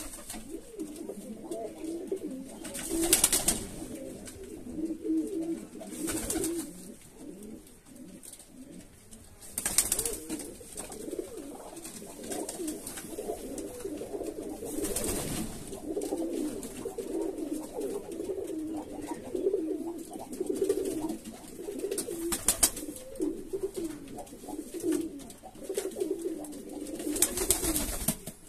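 Several domestic pigeons cooing continuously, low overlapping coos. About six short rustling bursts are scattered through.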